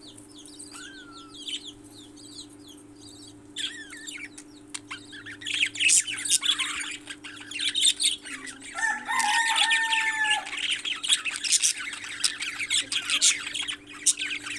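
Parrots chirping, then from about five seconds in many of them squawking loudly and harshly, with one long drawn-out call a little past the middle. A steady low hum runs underneath.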